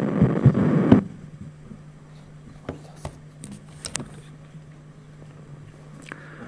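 About a second of loud rustling that stops suddenly, then quiet room tone with a steady low hum and a few faint clicks.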